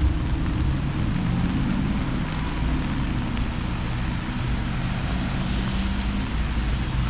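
A motor vehicle's engine running close by with a steady low hum, over a constant hiss of rain and wind.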